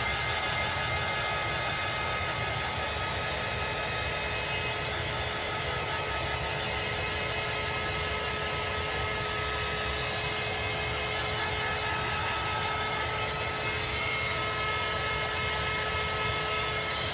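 Heat gun blowing steadily, a rush of air with a steady whine in it, drying freshly applied chalk paste. It cuts off near the end.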